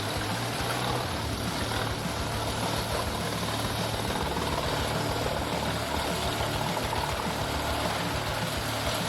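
Heavy wood-crushing machine's engine running steadily, a constant low hum under an even mechanical noise.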